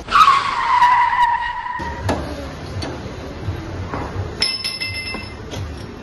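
Tyre-screech sound effect: a loud squeal that falls in pitch and then holds for about two seconds. After it come faint workshop sounds, with a ringing metallic clink about four and a half seconds in.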